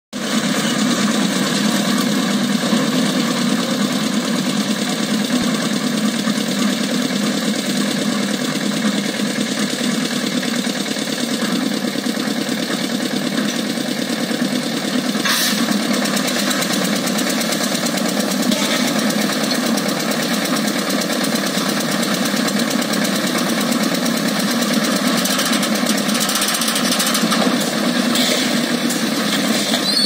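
Engine of a site concrete mixer with a hoist running steadily, with one sharp click about halfway through.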